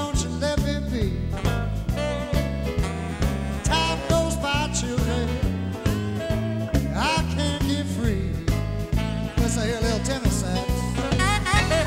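A live band playing a swing-style blues number, with a steady bass line and a man singing over a keyboard.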